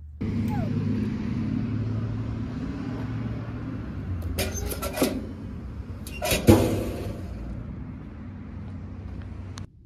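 Outdoor traffic rumble, with the metal flap of a book-return drop box clattering as a book is pushed in: a quick run of clicks about four seconds in, then a louder clank about six and a half seconds in.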